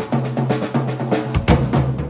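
Acoustic drum kit played in quick strikes across the drums and cymbals. The low drums ring on between hits.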